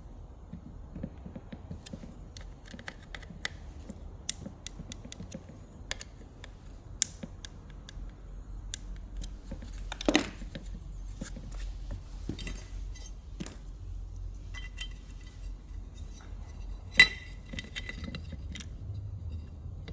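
Small metal parts and hand tools being handled on a workbench during an alternator rebuild: scattered light clicks and clinks, with a louder knock about halfway through and a sharp ringing metal clink near the end.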